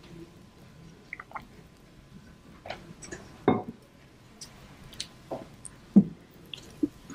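Paper rustling and small handling noises close to a microphone, with two louder soft knocks about three and a half and six seconds in.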